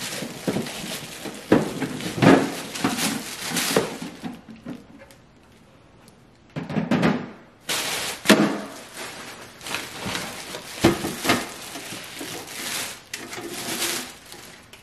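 Bubble wrap and plastic packaging crinkling and rustling as clear plastic organizer bins are pulled out of a cardboard box, with sharp crackles and light knocks of hard plastic. The handling pauses for a couple of seconds about halfway through.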